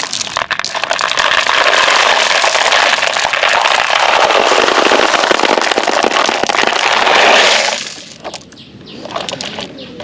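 A large heap of marbles pouring out and clattering against one another in a dense, continuous rattle, which dies down to a few scattered clicks about eight seconds in.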